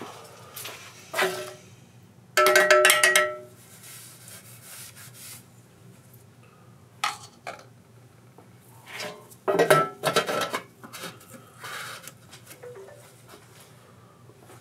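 Small metal parts and tools clinking and rattling against each other, with two louder bursts of ringing metallic clatter, one about two and a half seconds in and one around ten seconds, and scattered lighter knocks between.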